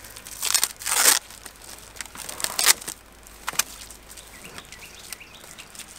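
Roll of black plastic deer netting rustling and scraping as it is handled and its wrapping undone, in several short bursts over the first three seconds, then quieter.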